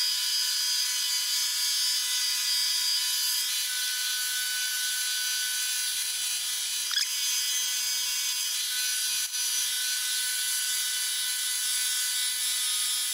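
Milling machine running as a two-flute end mill cuts a keyway slot in a steel engine crankshaft, widening it by a half-millimetre step-over. It is a steady, high, thin whine of several fixed tones, and some of the tones shift slightly a few seconds in.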